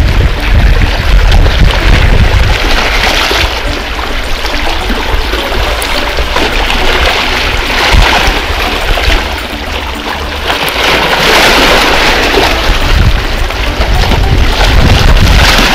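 Sea waves washing and splashing against rocks, surging in and out several times, over a steady low rumble of wind on the microphone.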